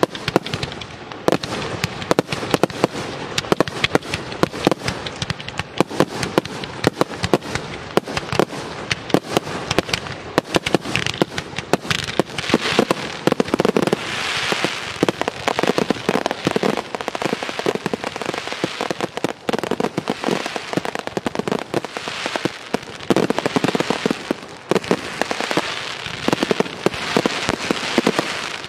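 Aerial fireworks display in a dense, continuous barrage of rapid bangs, with stretches of thick crackling in the middle and again near the end.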